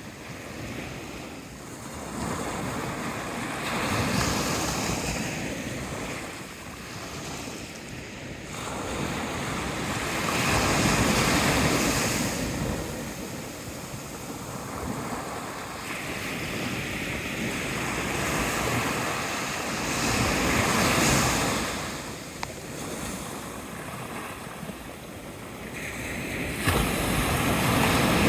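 Ocean waves breaking and washing on the shore, a hissing surge that swells and falls back every few seconds, with some wind on the microphone.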